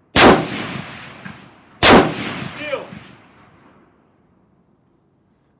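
Two rifle shots about 1.7 seconds apart, each a sharp crack with an echoing tail. A short falling whine follows about a second after the second shot.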